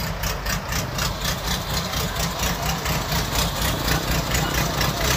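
Crawler tractor's diesel engine running at idle with an even chugging beat.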